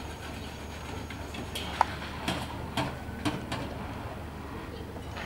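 Outdoor background with a steady low rumble, and a run of sharp clicks or taps about twice a second near the middle.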